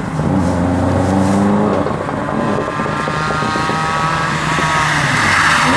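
Rally car engine running hard, its pitch shifting up and down, with a high whine that grows louder toward the end.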